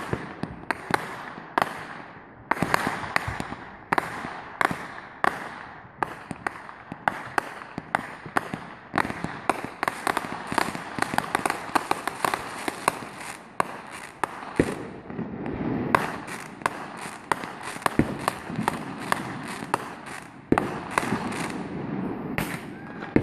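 Aerial fireworks going off in rapid succession, several sharp bangs and crackles a second, over a steady rumble.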